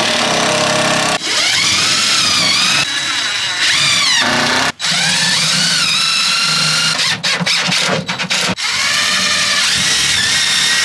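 Power drill whining, its pitch rising and falling as the trigger is worked. It stops briefly about halfway through, then in several quick stops and starts a little later, as when driving screws.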